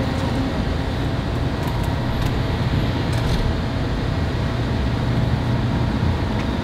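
A steady low mechanical hum over a constant background hiss.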